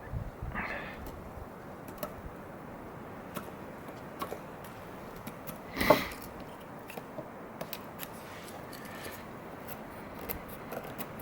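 A knife blade cutting into a wooden stick to carve a notch: scattered small clicks and shaving cuts, with one louder crack about six seconds in.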